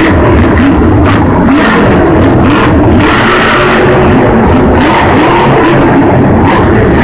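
Monster truck's supercharged V8 revving hard, its pitch rising and falling again and again as the truck drives and wheelies over the dirt. Very loud throughout.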